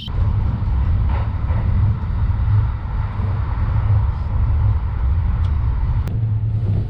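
JR Rapid Marine Liner train running, heard inside the carriage: a steady low rumble with rail noise, and one sharp click about six seconds in.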